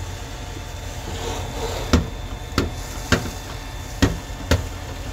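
Five sharp, hard strikes on the burning minivan, irregularly about half a second to a second apart, starting about two seconds in: a firefighter hitting the van with a hand tool.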